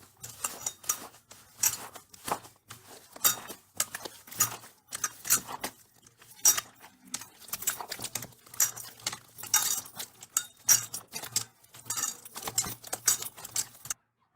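Slime being squeezed and poked by hand, giving a dense, irregular run of crisp clicks and crackles that stops abruptly near the end.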